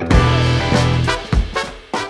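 Small jazz-funk horn band playing, with trumpet, tenor saxophone and trombone over electric guitar, bass and drum kit. It plays a loud held chord that slowly fades, punctuated by a few hard kick-drum and bass hits, as the closing bars of the tune.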